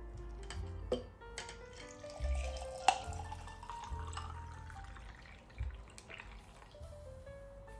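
Water pouring from a jug into a glass jar of ice and cucumber slices, with a few light clinks, over calm background music.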